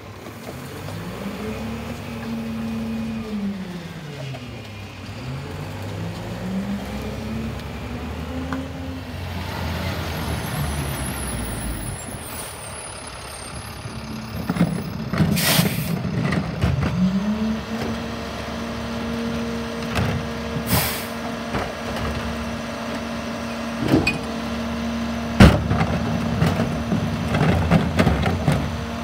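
Rear-loader garbage trucks working their packers. The engine speeds up and drops back several times as the compactor cycles, then is held at a steady raised speed. Short air hisses come about midway, and a loud bang comes near the end.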